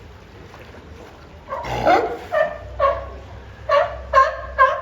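California sea lion barking. After a quiet start, a longer call comes about a second and a half in, then a run of short, evenly spaced barks at about two a second.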